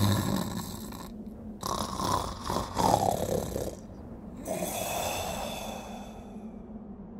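A man snoring in his sleep: a few long snores with short breaks between them, the last one fading away.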